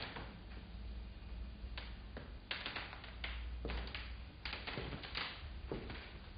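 A pen scratching across paper in a run of short, uneven strokes, as in handwriting, over a low steady hum.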